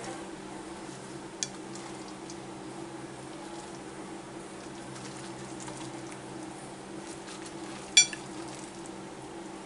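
Quiet handling and scraping of a spaghetti squash as its seeds are scooped out by hand onto a paper plate, over a steady low electrical hum. One sharp click stands out about eight seconds in.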